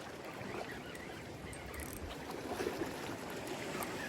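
Faint steady wash of incoming seawater among shoreline boulders, with a few small clicks.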